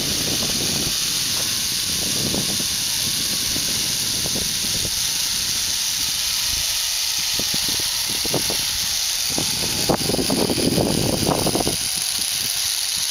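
Steady rushing hiss of wind on the microphone, with heavier rough buffeting for about two seconds near the end.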